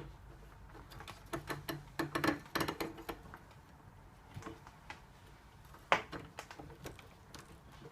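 Letterbox tool rattling and clicking as it is worked through a door's letterbox against a Yale latch: a run of quick clicks and rattles between about one and three seconds in, then one sharp click near six seconds.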